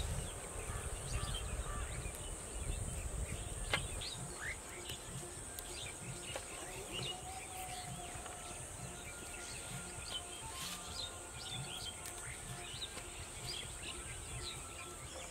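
Outdoor ambience of small birds chirping now and then over a steady high insect hiss, with a low rumble in the first few seconds.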